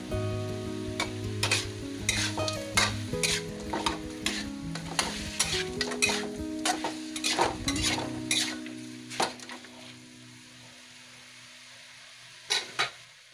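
Spatula stirring and scraping chicken pieces around a steel wok as they fry and sizzle, with dense scraping strokes for about nine seconds. After that only a soft sizzle, then two sharp clicks near the end.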